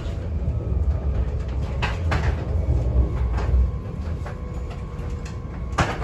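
Regio 2N double-deck electric train heard from inside the car while braking: a steady low rumble of the running gear with a faint steady whine, and a few sharp clunks about two seconds in and again near the end.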